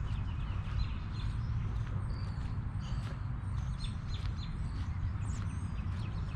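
Small birds chirping in many short, high calls over the crunch of footsteps through brush, with a steady low rumble underneath.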